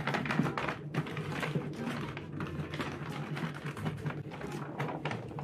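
Plastic courier mailer bag crinkling and rustling as it is cut and pulled open by hand, in irregular crackles and clicks.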